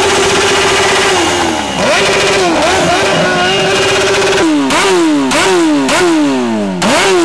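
Motorcycle engine held at steady high revs, dipping briefly about a second in and coming back up. Past the middle it is revved in a quick run of throttle blips, each rising sharply and falling away, about two a second.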